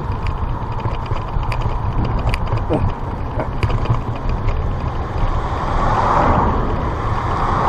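A car coming up from behind, its road noise swelling over the last two seconds, over a steady low rumble of wind on the microphone of a moving bicycle.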